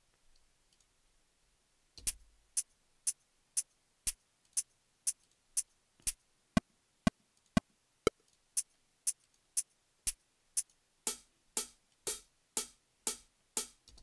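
LUNA DAW software metronome clicking at 120 bpm, two clicks a second, starting about two seconds in. The click sound changes several times, around six, eight and eleven seconds in, as different metronome sounds are picked from the menu.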